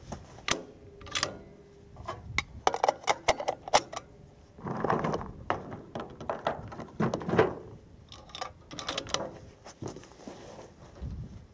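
Handling noise close to the microphone: a rapid run of sharp clicks and rattles, with a couple of short muffled rustles in the middle.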